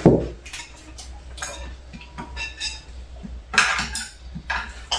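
Tableware sounds during a meal: chopsticks and dishes clicking and clinking lightly and irregularly, with a louder clink about three and a half seconds in.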